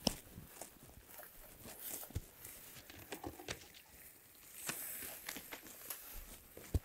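Faint footsteps and rustling through tall dry grass, with scattered light ticks, a sharp click right at the start and another just before the end.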